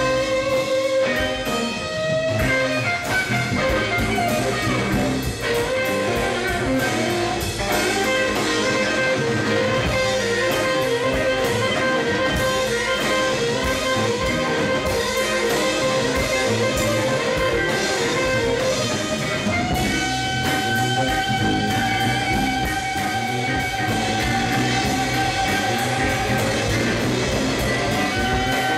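Live band jamming on electric guitars over drums, with no singing. A lead guitar holds a long sustained note, then jumps to a higher held note about two-thirds of the way through.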